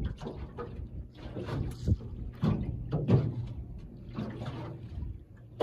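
Small waves slapping against the hull of an aluminum jon boat, giving irregular hollow knocks every second or so over a low rumble.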